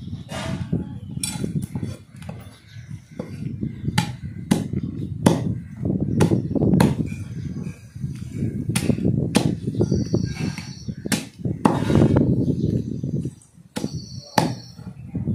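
Butcher's cleaver chopping through a goat carcass: a string of irregular sharp strikes, some closely spaced.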